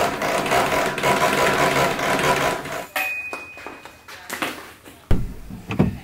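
Sectional garage door rattling along its metal tracks for about three seconds, then a short high beep and two sharp thumps near the end.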